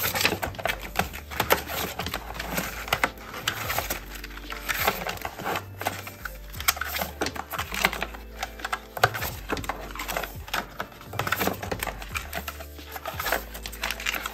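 Paper savings-challenge envelopes being emptied by hand, with banknotes pulled out and handled: a busy run of rustling and crisp paper clicks. Background music with a low bass line plays underneath.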